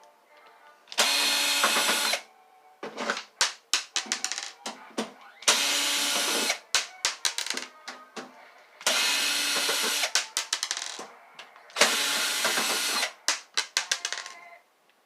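Cordless power drill-driver running in reverse four times, each burst about a second long, backing screws out of an electric heater's casing, with clusters of clicks and rattles after each as the loosened screw and the tool are handled.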